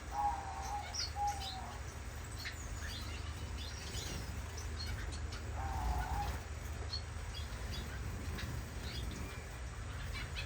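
Caged owl finches calling: a few short, nasal, mid-pitched calls near the start and again about six seconds in, with scattered brief high chirps in between.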